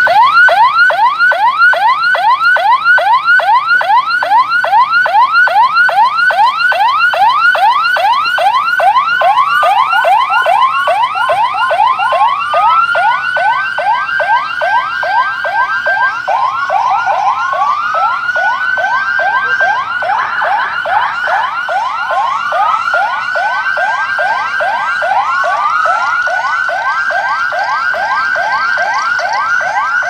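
Electronic emergency-vehicle sirens from an ambulance and police-escort convoy, loud, in a fast yelp of three to four rising sweeps a second. About ten seconds in a second siren joins with slower wails that rise and hold, repeating every three seconds or so.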